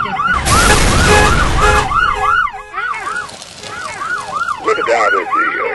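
Emergency vehicle siren in a fast yelp, its pitch sweeping up and down about three times a second. A loud rushing noise covers it for about a second and a half near the start, and a second, lower siren joins near the end.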